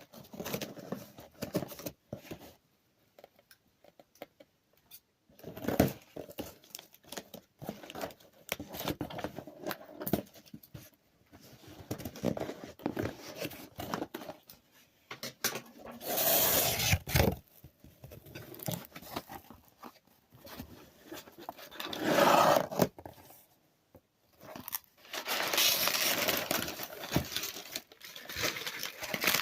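Packaging being torn open and handled by hand: irregular rustling, crinkling and crunching, with louder stretches of tearing about halfway through, again a few seconds later, and a longer one near the end.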